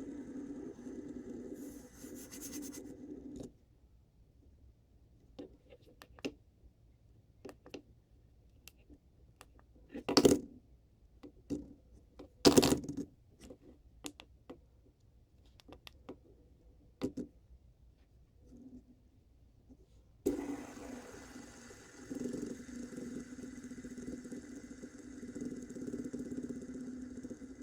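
Fidget spinner whirring as it spins, stopping about three seconds in. A quiet stretch follows, with scattered clicks and two louder knocks, until it is set spinning again and whirs on steadily for the last third.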